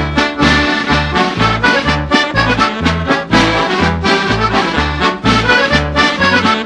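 Lively instrumental music with a bouncing bass, which alternates between two low notes about twice a second under a busy melody.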